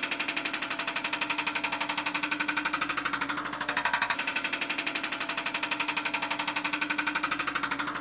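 Hydraulic breaker hammering concrete with a fast, even rattle of about ten blows a second, over the steady hum of the machine's engine and hydraulics.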